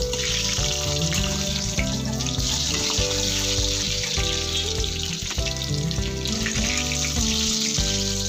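Potatoes sizzling as they fry in hot oil in an iron kadai, a steady crackling hiss. Background music with held notes plays over it.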